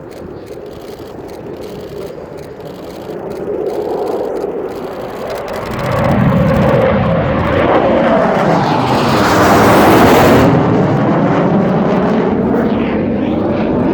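Panavia Tornado GR4 jet flying past, its twin RB199 turbofan engines running loud: the noise builds from about six seconds in and peaks with a high hiss near ten seconds. The hiss cuts off sharply and a lower roar carries on as the jet moves away.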